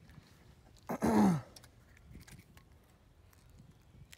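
A person's short wordless exclamation about a second in, falling in pitch; then faint scattered clicks.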